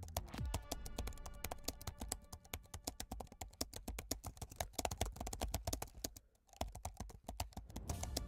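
Rapid computer-keyboard typing clicks, many a second, with a brief pause a little after six seconds in, over background music with steady held tones.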